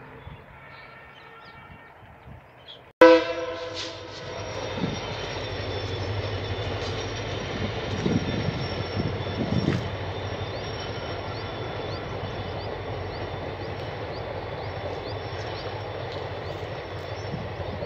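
A short, loud blast of an Indian Railways diesel locomotive horn bursts in about three seconds in and fades within a second. It gives way to the steady rumble of a diesel-hauled passenger train (WDP4D and WDM3A locomotives in push-pull) running past, its coaches' wheels clattering over the track.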